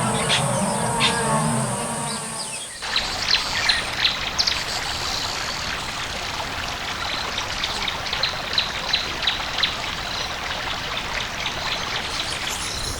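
Wild birds chirping in many short, quick calls over a steady rushing hiss, like flowing water, in outdoor savanna ambience. A different ambience, with a steady high insect-like whine and low rumbling, cuts off suddenly about three seconds in.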